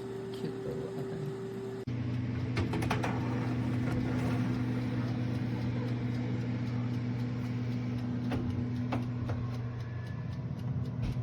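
Countertop air-fryer oven running with a steady electrical and fan hum, with a few light clicks. The hum changes abruptly about two seconds in and is louder after that.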